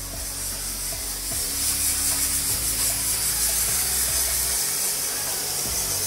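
Pressurized water jet spraying into the fins of an air handling unit's cooling coil, a steady hiss that grows louder about a second and a half in, to flush out trapped dust, with a low steady hum underneath.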